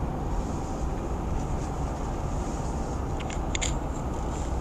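Steady engine and road noise heard inside a moving pickup truck's cab, with a few short clicks about three and a half seconds in.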